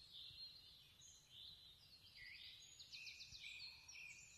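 Faint songbird chorus: chirps and short whistled phrases overlapping, with a quick trill of repeated notes about three seconds in.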